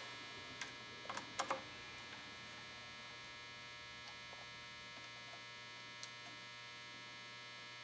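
Steady electrical mains hum with a few faint clicks and taps, mostly in the first second and a half and once more near six seconds.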